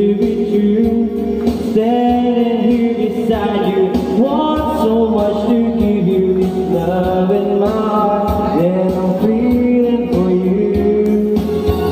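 Karaoke singing: a man and a woman sing into microphones over amplified backing music.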